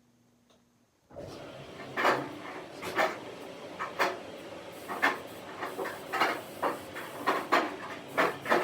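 General Electric washing machine starting its cycle: a steady hiss of water coming in starts suddenly about a second in, with repeated knocks about once a second as the drum turns, coming faster near the end.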